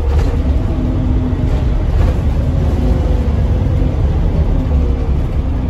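Scania OmniCity bus's diesel engine running, heard from inside the passenger saloon: a steady low rumble with an engine tone that eases down slightly near the end.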